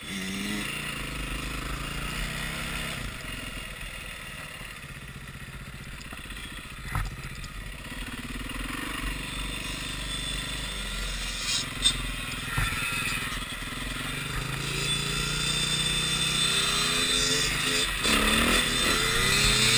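Dirt bike engines heard from the rider's helmet, pitch rising and falling as the throttle opens and the bike shifts gears, with a steady rush of wind and road noise. The engine note climbs through the gears near the end as the bike accelerates.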